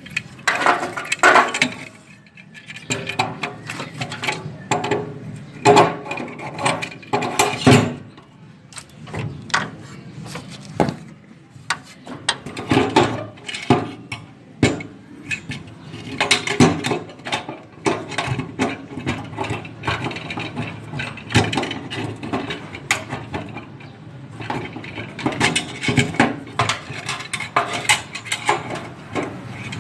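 Hand tools at work on metal parts: irregular clicks, clinks and ratcheting, with no steady rhythm.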